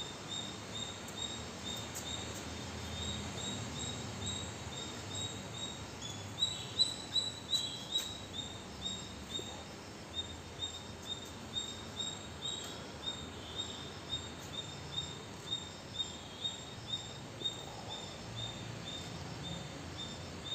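A bird calling a steady series of short, high chirps, about two a second, louder and quicker for a couple of seconds early in the series.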